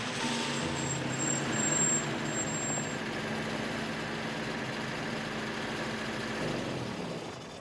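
Taxi's engine running steadily with road noise, dying away near the end.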